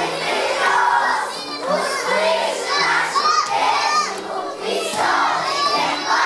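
A crowd of young children chattering and shouting all at once, with high squeals rising over the din.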